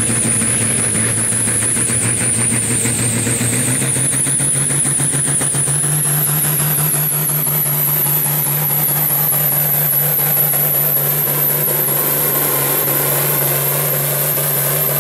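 International Harvester farm tractor's turbocharged diesel engine at full throttle, pulling a weight-transfer sled, with black smoke from the stack. A high turbo whistle wavers, then climbs steadily through the pull, and the engine note rises about six seconds in.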